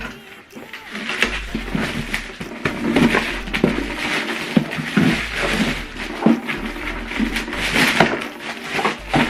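Cardboard box and packaging being handled: irregular knocks and clicks with rustling and scraping between them.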